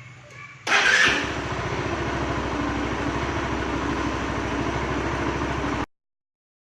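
Kawasaki Rouser NS160 motorcycle engine starting with a sudden burst under a second in, then running at a steady, evenly pulsing idle; the sound cuts off suddenly near the end.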